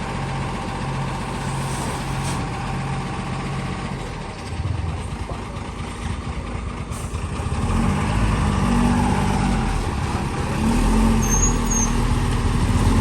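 Heavy diesel engines of a backhoe loader and tipper trucks running. The sound grows louder from about eight seconds in, with the engine note rising and falling.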